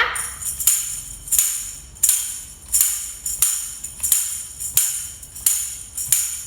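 Tambourine struck at a slow, steady beat, about ten strokes with the jingles ringing after each. The slow beat is the signal for the children to stamp their feet in place.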